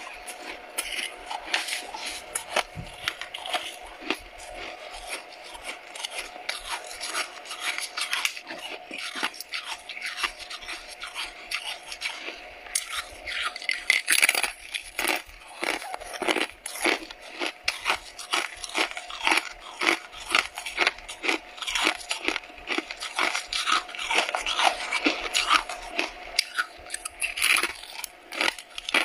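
Close-miked crunching and crackling of freezer frost being bitten and chewed: a dense run of crisp cracks, busiest in the second half.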